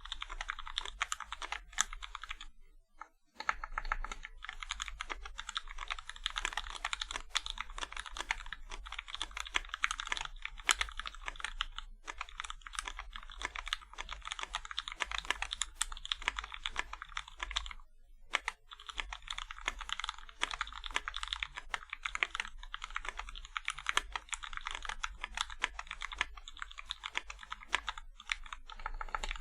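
Fast continuous typing on a Tofu65 mechanical keyboard with lubed 62 g Zealios V2 tactile switches: a dense stream of key clacks that stops briefly twice.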